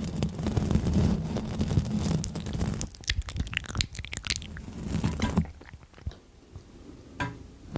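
Close-miked ASMR sounds: a crackly, rumbling rustle of a beard being rubbed against the microphone, then a run of sharp wet mouth clicks about three seconds in, fading to quieter mouth noises.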